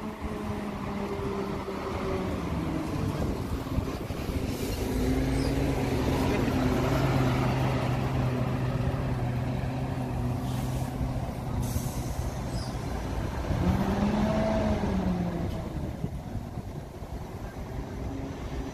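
Diesel double-decker bus engine running as the bus moves in to terminate at the depot. Its note holds steady, then rises and falls about three-quarters of the way through, with a few short hisses of air from the air brakes.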